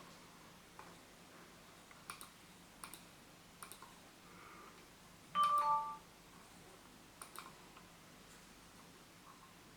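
A few soft, scattered clicks, and about halfway through a short electronic chime of two notes, the second lower than the first, which is the loudest sound.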